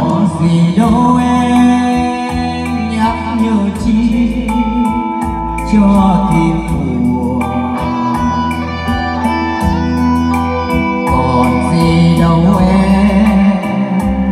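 A Vietnamese ballad played loud through a live-band stage sound system: a karaoke backing track with steady bass and guitar melody, and a man singing into a wireless microphone over it.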